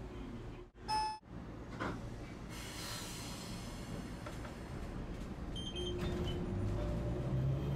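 Tosaden streetcar running along its track, heard from inside the car: a steady low rumble that grows louder near the end. A short chime rings about a second in, and a hiss follows around three seconds in.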